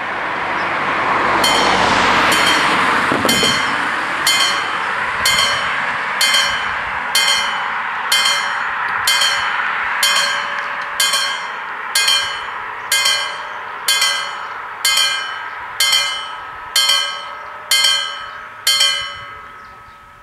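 Level-crossing warning bells striking about once a second, each strike ringing on briefly, as the crossing activates to warn of an approaching train; they stop just before the end. A loud rushing noise fades out in the first few seconds.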